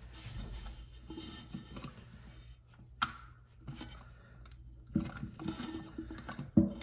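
Hands twisting the plastic top cap off a Fluidmaster toilet fill valve: faint scraping and rustling, with a sharp click about three seconds in and more clicks near the end as the cap comes loose.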